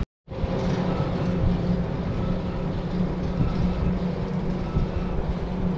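Steady mechanical hum of the Sandia Peak aerial tramway's cables and sheaves at the upper terminal tower, with a constant low drone and noise over it. It starts just after a brief cut-out at the very beginning.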